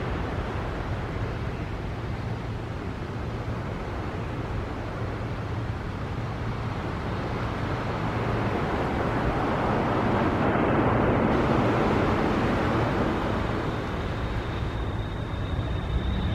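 Boeing 737 jet airliner's engines at takeoff power during the takeoff roll and lift-off: a steady rumble that swells and dips, then rises with a high whine near the end.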